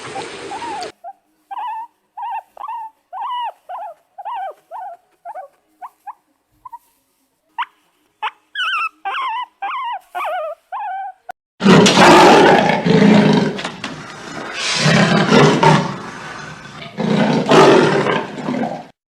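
A run of short, high calls that rise and fall, several a second. From about eleven seconds in, a large animal roars and growls in long, loud bouts.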